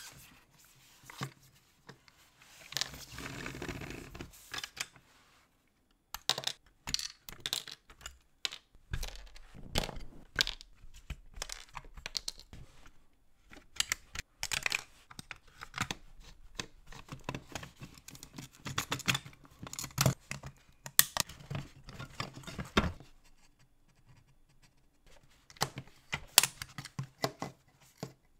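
Gloved hands handling and taking apart a diecast model car: a long run of small clicks, knocks and scrapes of its metal body and plastic interior parts, with a brief stretch of rubbing early on and a quieter gap near the end.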